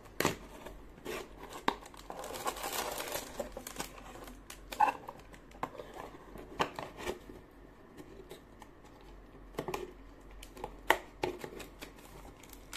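Packaging of a switch socket outlet being opened by hand: scattered clicks and taps, with a stretch of crinkling and tearing about two seconds in.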